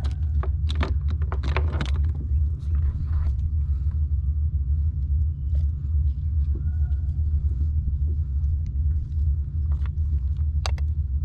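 Steady low rumble of wind buffeting the microphone, with a few sharp clicks scattered through it, most in the first couple of seconds and one near the end.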